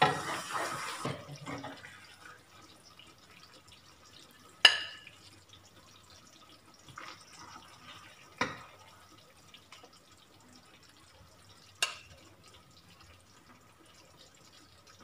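Stainless-steel ladle clinking against a nonstick frying pan and a ceramic plate while humba is dished out: a few sharp, separate clinks, the loudest about four and a half seconds in, with others near eight and a half and twelve seconds.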